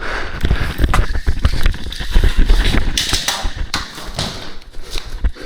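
A rapid, irregular run of thumps and taps from a player on the move: footsteps and gear knocking.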